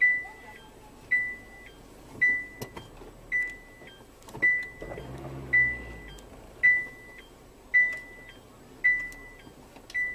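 Electronic beep, a short high tone, repeating evenly about once a second, each beep opening with a click. A faint low rumble comes in briefly about halfway through.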